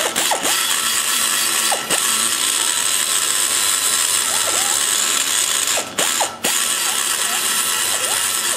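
A die grinder spins a ball-shaped carbide cutter as it cuts metal inside the exhaust port of a KMJ 345cc big-block Chevy cylinder head, while a hump in the port is leveled out. The sound is a steady, high-pitched grinding that dips briefly about two seconds in and twice around six seconds, as the cutter eases off.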